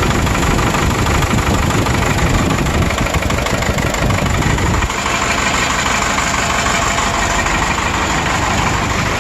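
Cummins 4BT 3.9 L four-cylinder turbo diesel running loudly, with a pulsing exhaust. The engine has low compression across the board and worn piston rings that blow by. About five seconds in, the sound becomes a little quieter and less deep.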